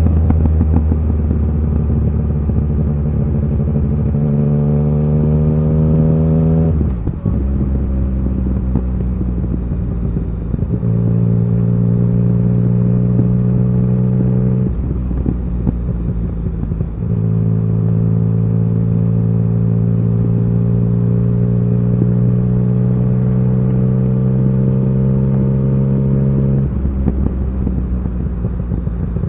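Yamaha XSR900's inline three-cylinder engine pulling steadily under way, its note climbing slowly in each gear. The pitch drops abruptly about seven seconds in, again around fifteen seconds and near the end, as gears change.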